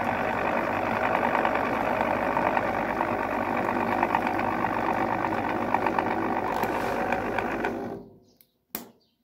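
Moulinex Multi Moulinette electric food chopper running steadily, its blades churning boiled potatoes with olive oil into mash. The motor stops about eight seconds in, and a single sharp click follows.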